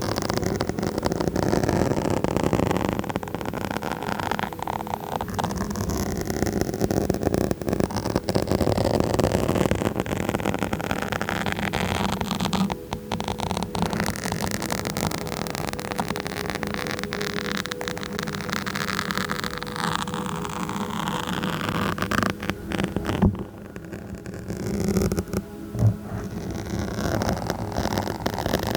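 Continuous scratching on a microphone: a dense, crackling noise with a steady hum underneath. It dips briefly twice and is broken by a couple of sharp knocks near the end.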